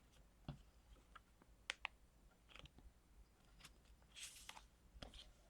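Near silence with scattered faint clicks and a brief soft rustle about four seconds in: paper craft pieces and stickers being handled.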